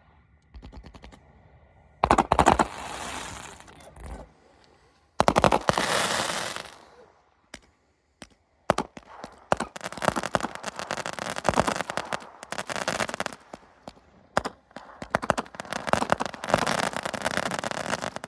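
Fireworks going off: two loud bangs, about two and five seconds in, each trailing away, then from about halfway a long run of rapid crackling pops.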